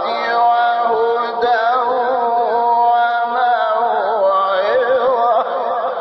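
Male Quran reciter's voice in the melodic mujawwad style, drawing out a phrase in long, held notes that bend up and down in ornamented runs.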